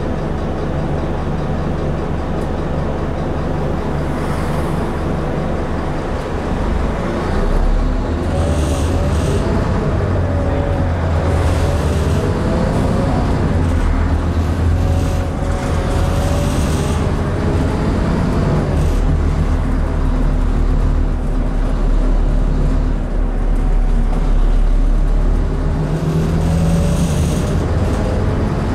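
Scania N230UD Enviro400 double-decker bus heard from inside the passenger saloon. Its five-cylinder diesel engine is running and gets louder about seven seconds in as the bus pulls away, with the engine note rising and falling. Several brief hissing sounds come in over it.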